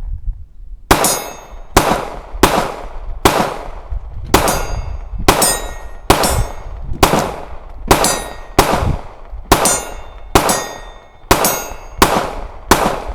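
Gunshots fired at a steady pace, about fifteen shots roughly a second apart, each with a short high ringing tail.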